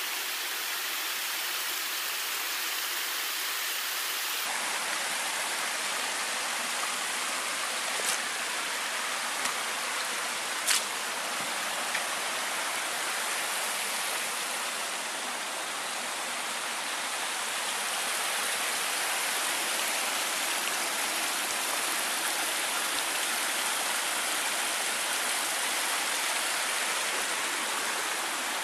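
Brook flowing: a steady rush of running water, with two brief clicks a few seconds apart about a third of the way in.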